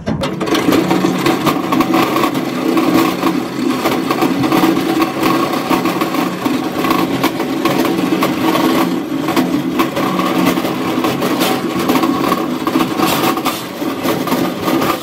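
Rail coaster sled running along its steel tube track, a loud steady rumble of wheels on rail with continual rattling. It starts abruptly.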